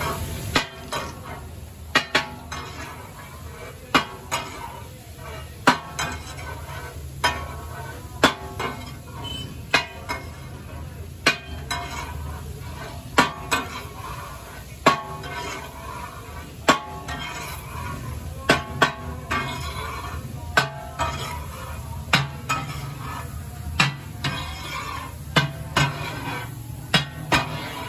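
Metal spatulas clanking and scraping on a large flat iron tawa as fish katakat is chopped and stirred: sharp irregular clanks every second or two over a steady low hum.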